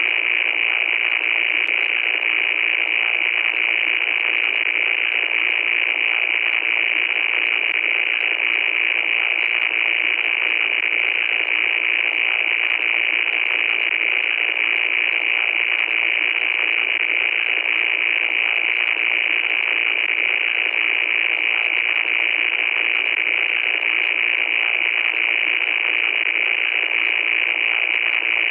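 Loud, steady static hiss with a sharp, narrow sound like static through a radio or phone line, brightest in the upper middle, with faint crackling ticks scattered throughout.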